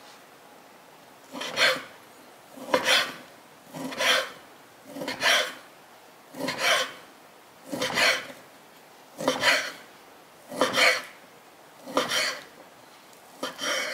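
Chef's knife slicing a stack of cured ham slices into thin strips on a wooden cutting board: about ten slow, evenly spaced scraping strokes, one every second or so, each the blade drawn through the meat against the board.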